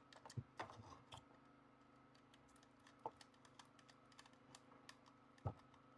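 Faint, scattered small clicks and taps from the live wire being terminated in a smart switch's screw terminal, with a screwdriver and wire being handled against the switch. The clicks are irregular, with a few more together near the start and single ones near the middle and near the end.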